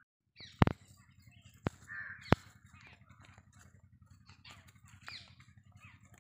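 Birds calling repeatedly over a low steady hum, with three sharp clicks in the first two and a half seconds that are the loudest sounds.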